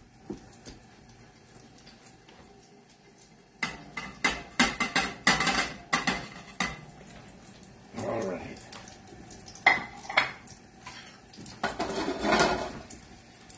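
A ceramic plate and utensils clattering against a stainless steel stock pot as gnocchi are tipped into boiling water, a quick run of clinks starting about three and a half seconds in. Scattered knocks and scraping in the pot follow.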